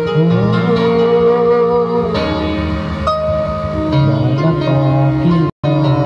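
Videoke backing music with guitar, and a man singing along through a microphone in long held notes. The sound drops out for a split second near the end.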